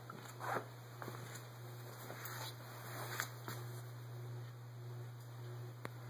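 Quiet room tone: a low steady hum with a few brief soft rustles early on and a single sharp click near the end.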